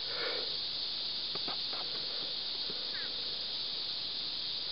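Steady, high-pitched drone of insects, with a few faint clicks about a second and a half in.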